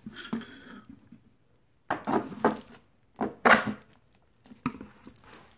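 Hands working a corrugated hose onto the plastic fittings of clear plastic air-bag feet: the plastic sheeting crinkles and the hose rubs, in a few short bursts of handling noise.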